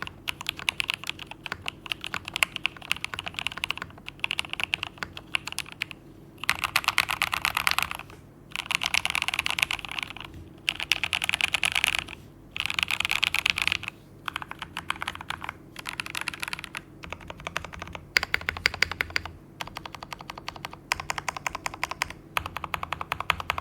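Typing on a Fantech Maxfit70 gasket-mount mechanical keyboard with Jwick Black linear switches lubed with Krytox 205g0 and swapped to 65 g long springs. There are steady keystrokes, then four spells of very fast typing with short pauses between them, then slower, sparser typing.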